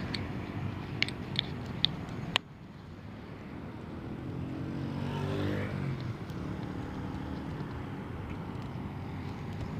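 Kawasaki Ninja 150RR's two-stroke single-cylinder engine running steadily at low revs. There are four sharp clicks in the first two and a half seconds, and the engine note briefly rises and falls about five seconds in.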